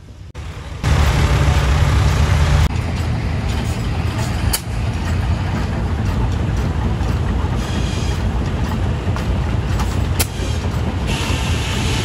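Belt-driven sawmill running under power from a 1914 Rumley OilPull tractor's kerosene-burning engine: a loud, steady mechanical running with strong low rumble and a few sharp knocks. It starts suddenly about a second in, and a higher, brighter saw noise rises near the end.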